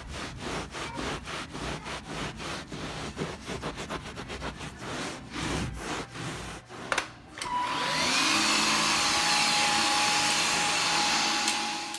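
Rapid scrubbing strokes on carpet, about four or five a second. Then, about seven and a half seconds in, an upright vacuum cleaner switches on; its motor spins up to a loud steady whine and winds down near the end.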